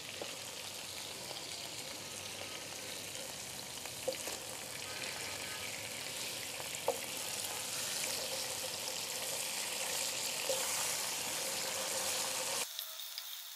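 Beef slices sizzling steadily in hot oil in an electric multi-cooker's non-stick pan, with a few soft clicks as a wooden spoon presses and turns them. Near the end the sizzle turns abruptly thinner.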